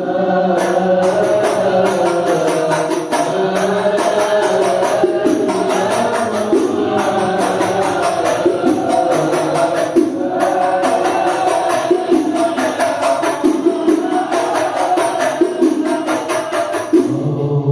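Shalawat song sung by chanting voices over steady, rhythmic frame-drum (rebana) percussion.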